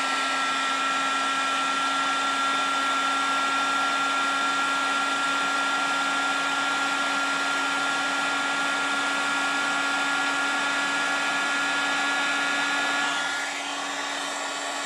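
Handheld electric heat gun running steadily, a fan-motor whine at one constant pitch over rushing air, blowing on a battery BMS's temperature probe to trip its high-temperature cutoff. The sound drops a little about thirteen seconds in.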